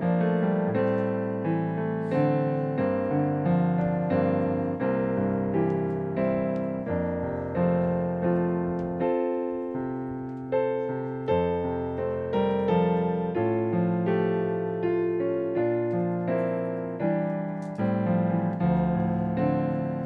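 Piano playing a slow piece in chords, each chord struck and left to fade before the next.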